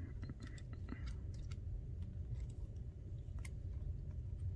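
Faint scattered small clicks and taps of parts on an iPhone XR under repair, as a connector is pressed into place, over a low steady hum.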